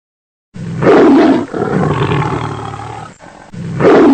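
Tiger roaring and growling: a loud roar about half a second in that trails off into rumbling growls, then a second roar starting near the end.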